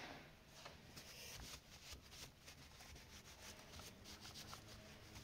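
Faint rubbing and small scuffing sounds of wiping overflowed chain oil off a chainsaw by hand.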